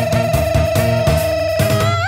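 Upbeat music: one high melody note held with a wavering vibrato over a steady bass and drum beat.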